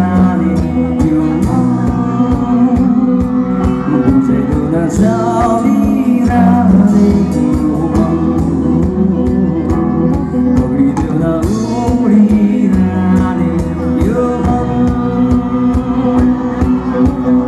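Live band playing a song: male lead vocals over acoustic guitar, keyboard and a drum kit keeping a steady beat.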